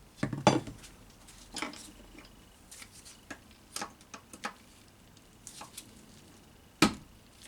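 Scattered knocks and clinks of hand tools and metal gearbox parts being handled during a transmission teardown. The loudest are a quick cluster of knocks about half a second in and a single sharp knock near the end.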